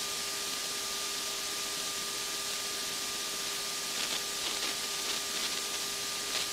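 Steady hiss of an open aircraft interphone/radio channel between transmissions, with a faint steady hum of two tones under it.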